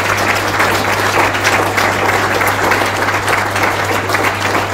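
An audience applauding: many hands clapping in a dense, steady patter at the close of a talk.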